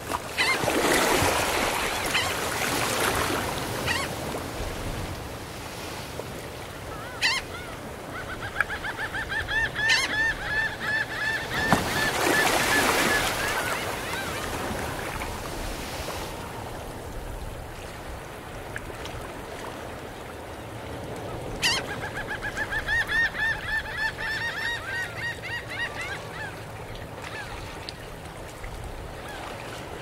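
Gentle ocean waves breaking and washing up a sandy shore, swelling about a second in and again around twelve seconds. Seagulls call in two long runs of quick repeated cries, the first from about eight seconds and the second from about twenty-two seconds in.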